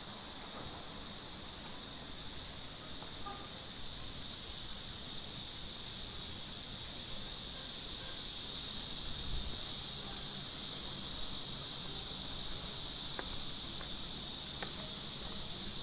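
Steady, high-pitched chorus of insects droning without a break, with a couple of faint ticks near the end.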